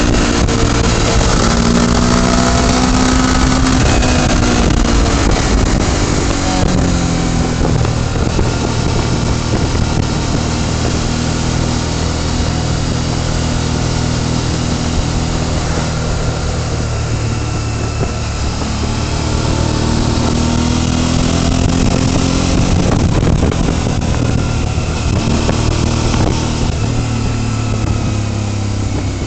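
Motorcycle engine running at road speed, its pitch rising and falling with the throttle in the first few seconds and again later on, otherwise steady, under a constant rush of wind.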